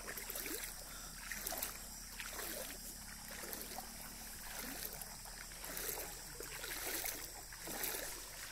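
Faint water sloshing and trickling, with irregular soft rustles and knocks.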